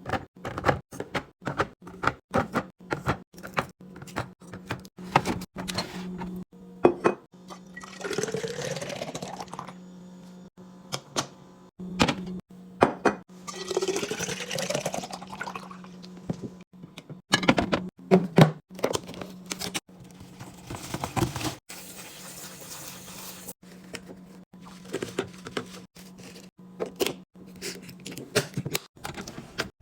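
Liquid poured into a container twice, the pitch rising as it fills, amid many clicks and knocks of containers being handled and set down, over a steady low hum.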